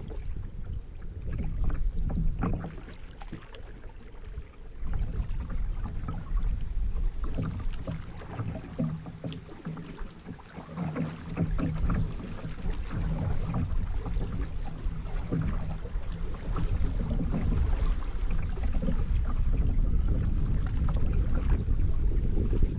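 Kayak gliding down a river: paddle blades dipping and water splashing and lapping against the hull in irregular strokes, over a constant low rumble, getting somewhat louder in the last few seconds.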